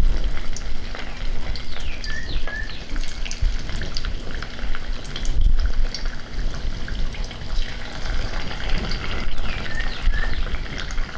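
Strips of boiled cassava (mogo) deep-frying in hot sunflower oil in a cast-iron pot: a steady sizzle with dense fine crackling as the oil bubbles around the pieces.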